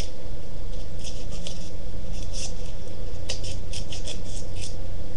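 Scissors snipping black paper: a run of short, crisp snips at an uneven pace, coming quicker in the second half.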